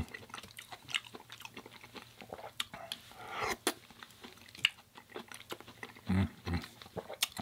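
Close-miked chewing of food, with many short wet mouth clicks.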